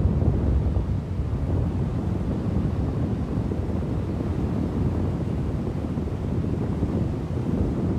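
Wind buffeting the microphone: a steady low rumbling roar.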